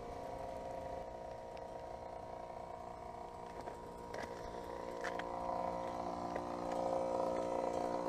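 Iced-over 2015 Ducane 2.5-ton heat pump outdoor unit running, a steady hum with several pitches that gets louder in the second half. The uploader suspects it is in its defrost cycle but cannot tell.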